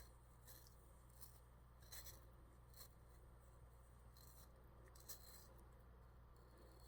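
Faint, short scraping strokes at irregular intervals of about a second, consistent with kiwi fruit being peeled by hand, over a low steady hum.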